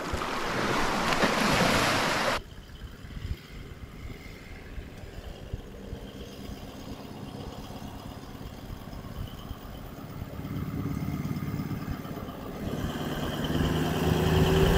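Small waves washing up on a sandy shore, cut off abruptly after about two seconds. A Toyota LandCruiser towing a caravan then drives along a dirt track, its engine growing louder as it approaches over the last few seconds.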